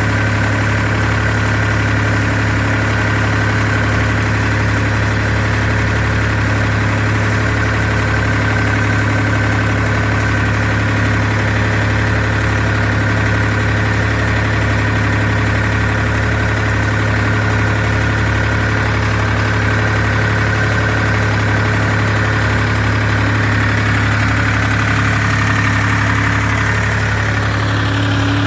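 The engine and machinery of a reed-cutting weed harvester boat running steadily at constant speed while it cuts reeds: a loud, even drone with a low hum and steady higher tones. Its tone shifts slightly near the end.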